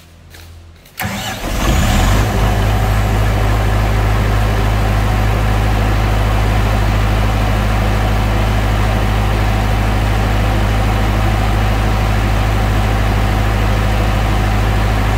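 TSUZUMI TDG 50 kVA silent diesel generator, its 4108D four-cylinder water-cooled engine, started from the control panel with the canopy doors open: a brief crank about a second in, the engine catches about a second later and then runs steadily with a deep hum.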